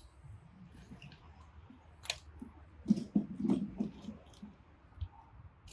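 Scattered light clicks, taps and rustling from handling tools and small parts, with a busier patch about three seconds in and a single dull thump near the end.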